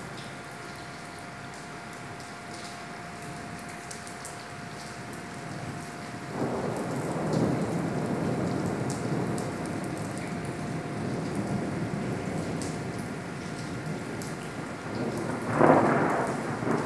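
Steady rain falling in a thunderstorm. Thunder breaks in about six seconds in and rumbles on for several seconds, and a second, louder peal of thunder comes near the end.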